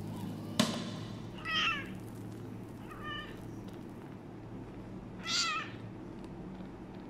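Newborn kitten mewing three times, short thin high cries about every one and a half to two seconds. A sharp click shortly after the start is the loudest sound.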